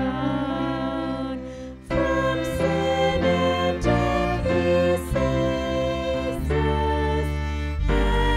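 Church worship band playing a slow hymn on violins and guitar, with sustained bowed notes. The music thins briefly about two seconds in, then comes back fuller.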